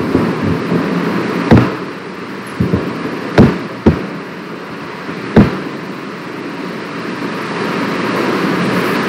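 Steady background hiss on a recording microphone, broken by about six sharp knocks in the first five and a half seconds.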